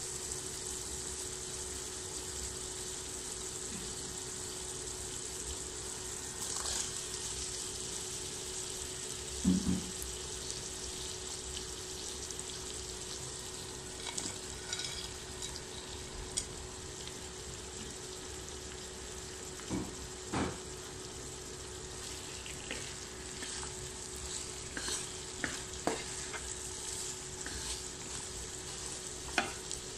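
Spiced onion masala sizzling in oil in a wok as potato pieces and bitter gourd strips are added, with a steady hum underneath. A wooden spatula knocks and scrapes against the pan a few times, more often near the end as the vegetables are stirred.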